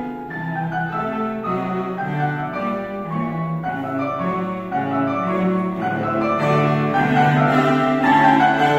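Piano trio playing classical music live: violin and cello bowing sustained lines over a Yamaha grand piano, growing louder in the last few seconds.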